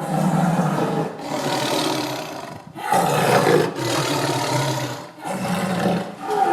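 Tiger growling and roaring in a series of rough calls, each about a second or so long, with short breaks between them.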